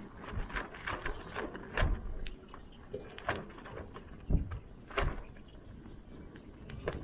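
Handling noise from cooking over a bonfire: irregular clicks and knocks, with a few dull thuds.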